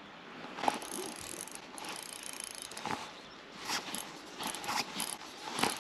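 Shimano Ultegra C2000S spinning reel being cranked in a stop-start retrieve, with scattered light mechanical clicks.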